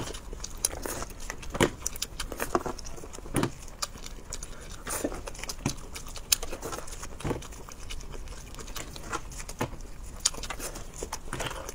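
Cooked prawn shells cracking and crackling as they are peeled apart by gloved hands, with irregular sharp clicks, and bites and chewing in between.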